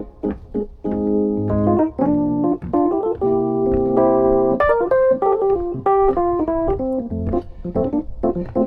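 Background music: a keyboard instrumental, chords and quick notes on piano or organ.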